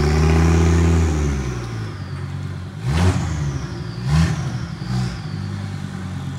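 Engine of a rear-engined tube-frame drag race car running as the car rolls slowly, blipped sharply twice about three and four seconds in and once more lightly near five seconds, then running steadily at low revs.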